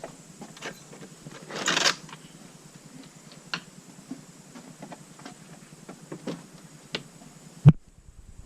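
Scattered light clicks and knocks, with a brief scraping rustle about two seconds in and one sharp thump near the end, after which the sound cuts off abruptly.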